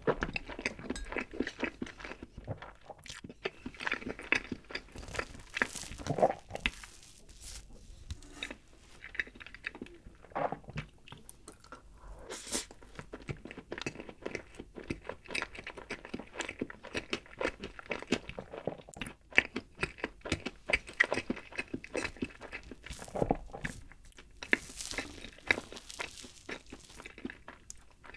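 Close-miked chewing of a mouthful of chocolate cake: a steady run of many small clicks and smacks.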